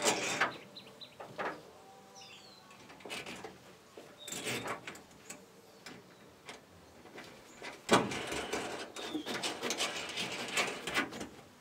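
Steel washers and a nut clinking against a threaded rod and each other as gloved hands fit them on by hand. About eight seconds in comes a run of rapid metal clicks as the nut is run down and snugged.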